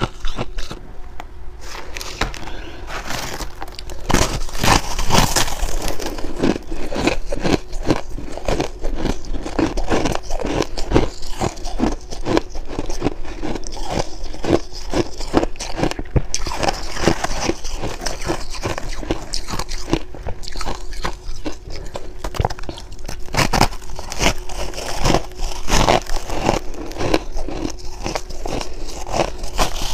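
Ice bitten and chewed close to a microphone: a dense, irregular run of sharp, crackly crunches, including frost-coated ice chunks bitten off by hand.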